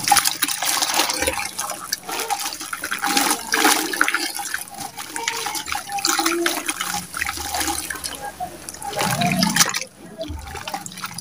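Wet, gritty sand-cement lumps crumbled by hand into a bucket of muddy water: dense crunching and crackling mixed with splashing as pieces and grit fall into the water, easing off a little before the end.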